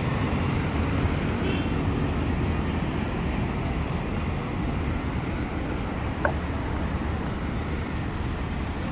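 Street traffic noise: a steady low rumble of cars and vans driving past a pedestrian crossing. A single short click about six seconds in.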